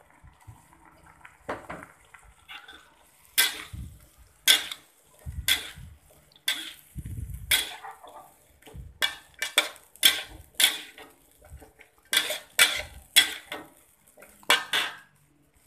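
Metal spoon clanking and scraping against a pan while vegetables are stirred: a dozen or so irregular strikes, with a few dull knocks among them.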